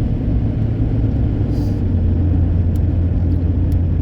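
Steady low drone of a pickup truck's engine and road rumble inside the cab while it tows a camper.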